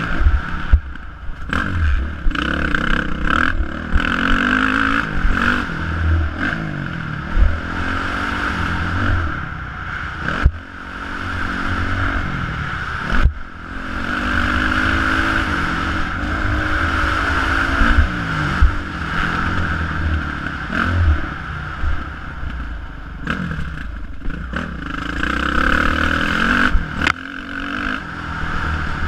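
Dirt bike engine heard from onboard on a motocross track, revving up and falling away again and again as the throttle is worked through the turns and jumps, cutting back sharply twice about halfway through. Knocks and clatter from the bumpy track and a low wind rumble on the microphone run under it.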